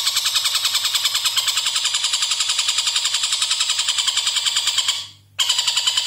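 Oriental dollarbird (tengkek buto) giving a long, fast, harsh cackling chatter of rapidly repeated notes. The chatter breaks off for a moment just past five seconds in, then carries on.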